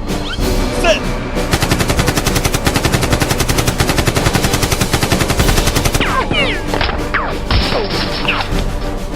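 Rapid automatic gunfire, about nine shots a second, running for about four and a half seconds and then cutting off suddenly, over background music.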